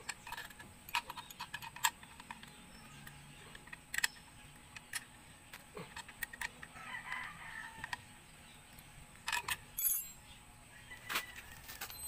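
Sharp metallic clicks and clinks of a hand wrench working the bolts of a motorcycle shifter bracket, coming in irregular bunches. A rooster crows once about seven seconds in.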